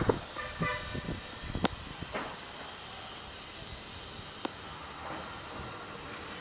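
Steady hiss of outdoor background noise, with a few sharp clicks in the first two seconds and a brief pitched tone lasting under a second, about half a second in.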